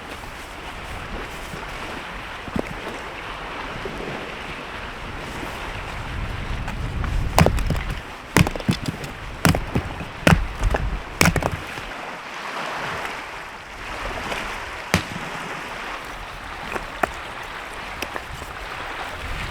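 Steady wind and rain noise, with a gust buffeting the microphone and a run of about six sharp knocks in the middle, followed by a few lighter clicks.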